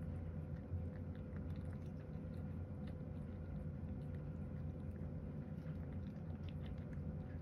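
A cat chewing food from a bowl: many small, irregular chewing clicks over a steady low hum.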